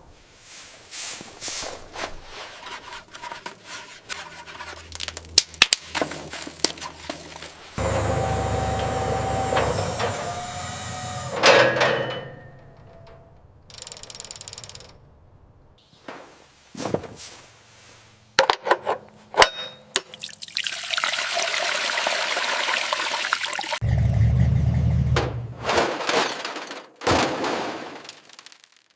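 A string of short workshop sounds: sharp clicks and knocks, two long stretches of rushing, water-like noise, and a low hum under the second one near the end.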